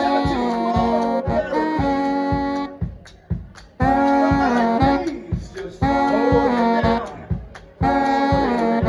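Live swing band playing: the horns hold chords in repeated phrases of about two seconds, with short breaks between them, over a steady beat.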